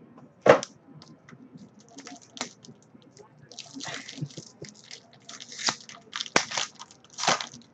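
Foil trading-card pack being torn open and crinkled, with short rustles as the cards are pulled out of the wrapper. A sharp tap about half a second in is the loudest sound, with another near the end.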